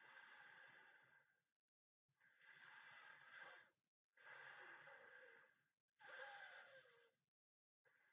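Faint breathing of a sleeping person: four breaths in and out, each about a second and a half long and about two seconds apart, with a faint whistling tone in the last two.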